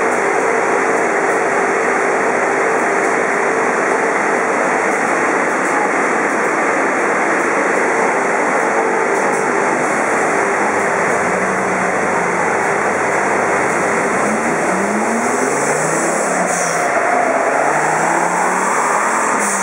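Steady, loud roar of a chassis dyno's large ducted cooling fan blowing air at the front of a car. From about three-quarters of the way in, a few short rising-and-falling tones come through underneath, the car's engine being blipped.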